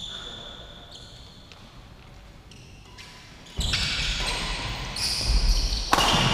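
Doubles badminton rally on an indoor court: sharp racket strikes on the shuttlecock and shoes squeaking and scuffing on the court floor. It starts sparse and gets much busier and louder about halfway through, with the loudest hit near the end.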